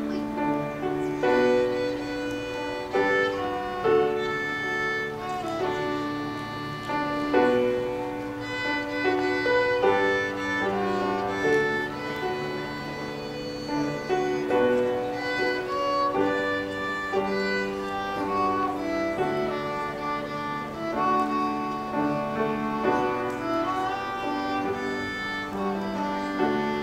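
A violin playing a slow melody of held notes, with lower sustained notes underneath.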